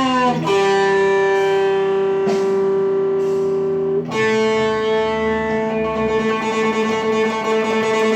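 Guitar playing a slow improvised melody of long sustained single notes: a bent note at the start, one note held for about three and a half seconds, then a higher note that rings on to the end.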